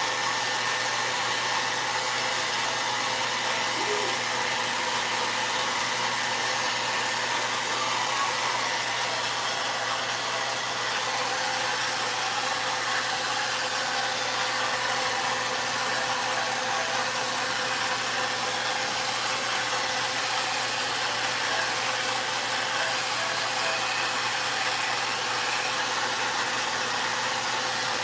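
Vone hair dryer blowing steadily: an even rush of air with a faint steady motor whine.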